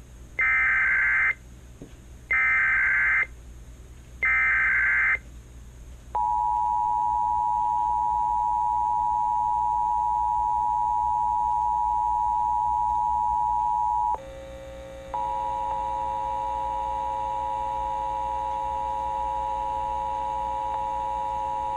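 Emergency Alert System activation: three short bursts of warbling SAME header data, each about a second long, then the steady two-tone EAS attention signal. About 14 seconds in, a lower, buzzier tone joins the two-tone pair; the pair drops out for about a second and then carries on over it.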